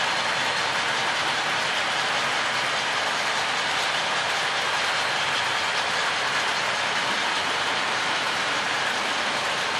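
HO scale model freight cars rolling past on track, a steady rolling noise of small metal wheels on the rails.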